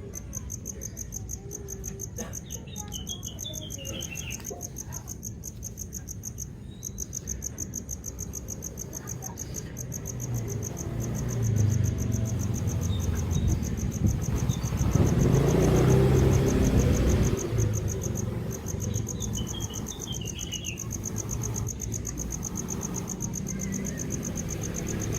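Insects trilling steadily in a fast, even pulse, with a few short bird chirps. In the middle a louder low rushing noise swells up and fades away again.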